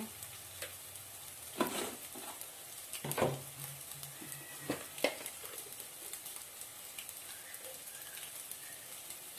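Egg pieces frying in oil in an aluminium pan, a steady faint sizzle. A few sharp knocks stand out above it, the loudest about one and a half, three and five seconds in.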